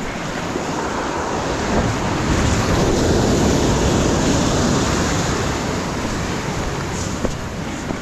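Sea waves surging and breaking against jetty boulders, swelling a couple of seconds in and easing off, with wind buffeting the microphone.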